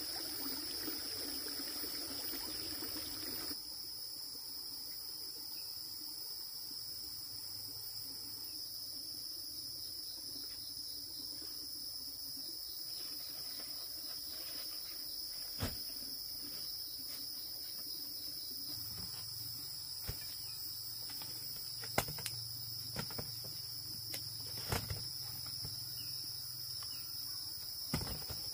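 Steady, continuous high-pitched insect chorus. For the first three seconds or so there is also a low rushing noise, which cuts off abruptly. A few sharp clicks or knocks come later on.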